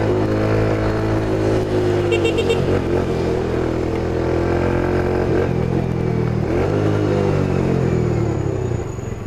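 Dafra Zig 100cc scooter engine running under the rider, its pitch falling as it slows about two and a half seconds in and again around seven seconds, then settling lower near the end as the scooter stops in traffic. A brief high beeping sounds about two seconds in.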